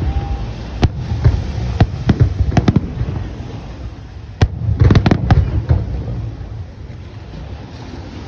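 Aerial fireworks shells bursting overhead: an irregular run of sharp bangs over a low rumble, with a dense cluster about five seconds in, growing sparser and quieter near the end.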